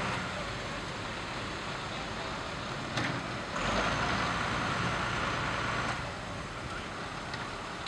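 Fire engines' engines running steadily. There is a sharp knock about three seconds in, and the noise grows louder for a couple of seconds after it.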